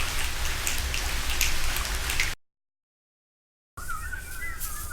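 Rain, a steady hiss of patter with scattered drop ticks, that cuts off abruptly about halfway through. After a second of silence, warbling bird-like whistles start near the end.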